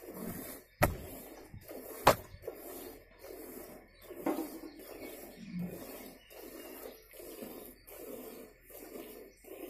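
Cow being hand-milked into a steel pot: squirts of milk hiss into the frothy milk already in it, in a steady rhythm of about one and a half strokes a second. Two sharp clicks about one and two seconds in are the loudest sounds.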